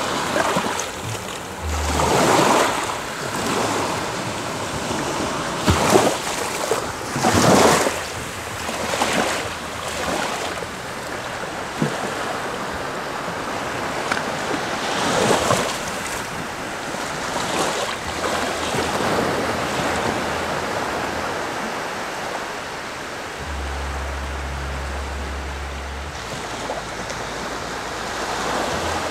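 Small sea waves breaking and washing up a sandy beach, with a new surge of surf every few seconds.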